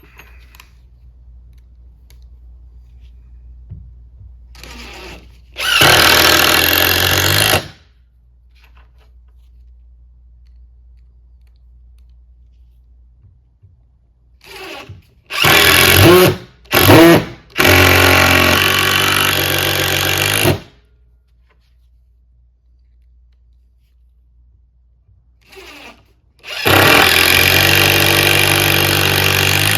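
Impact driver driving Phillips screws into pilot-drilled wood: three main runs of a loud hammering buzz, each two to three seconds long, each led by a short trigger blip. The middle run stops and restarts twice before finishing.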